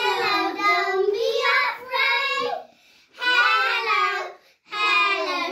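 Young girls singing a Christmas carol together without accompaniment, in sung phrases broken by two short pauses.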